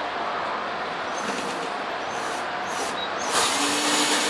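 Cordless drill run in several short bursts into the wooden frame, the longest and loudest near the end, over a steady background rush.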